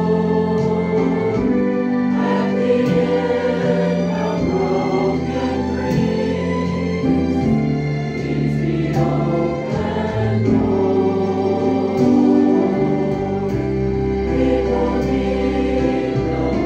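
Mixed church choir of men and women singing a hymn together in sustained, chord-changing phrases, with a steady low instrumental accompaniment beneath the voices.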